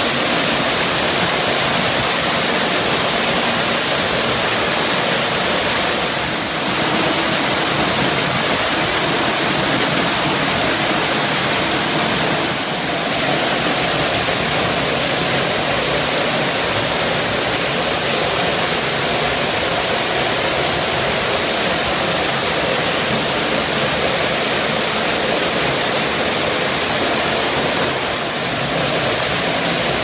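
Underground waterfall almost ten metres high, falling inside a tufa cave: a loud, steady roaring rush of water. The level dips slightly and briefly three times.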